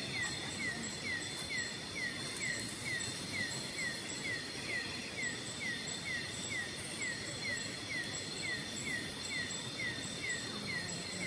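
Night-time tropical forest ambience: a steady high insect buzz, with a short falling chirp from a calling creature repeating about three to four times a second.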